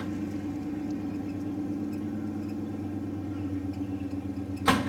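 V8 engine of a rat-rod pickup idling steadily through short open header pipes, with one brief loud burst near the end.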